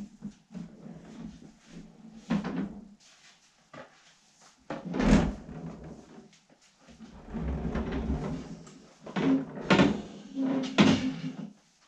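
Wooden kitchen island on casters being moved and handled: several knocks and thumps of wood, the loudest about five seconds in and near the end, and a stretch of rumbling in the middle as it rolls over the concrete floor.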